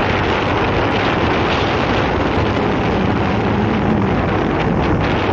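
Wind rushing over the microphone of a camera on a moving motorcycle, a steady loud rush, with the motorcycle's engine running underneath.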